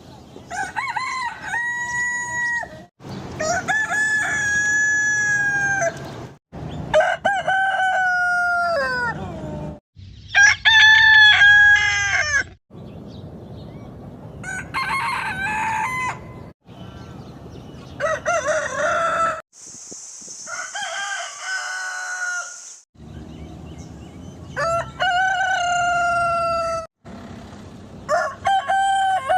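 Roosters crowing: about nine separate cock-a-doodle-doo crows from different recordings spliced one after another, each a long call that holds its pitch and drops at the end, with abrupt cuts between them. One crow in the second half has a loud hiss behind it.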